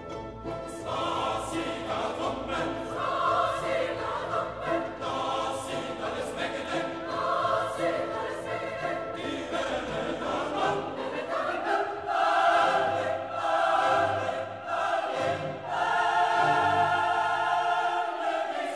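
Background choral music: a choir singing sustained lines over orchestral accompaniment.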